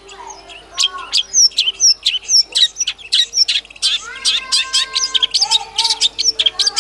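Long-tailed shrike (cendet) singing a fast, unbroken run of sharp, high chirps, several a second, with a few short held whistles mixed in about two-thirds of the way through.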